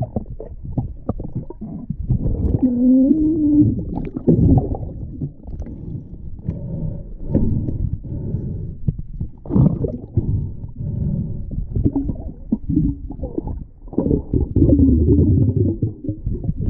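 Muffled underwater rumbling and knocking from a freediver moving over a rocky lake bed, with a gloved hand handling the stones, all dulled by the water and the camera housing. A short wavering hum comes about three seconds in.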